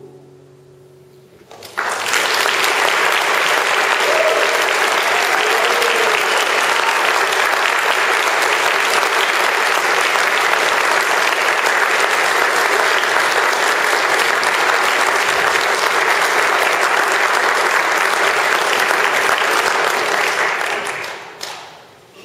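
A guitar's last notes ring out and fade, then the audience applauds. The applause starts sharply about two seconds in, holds steady, and dies away near the end.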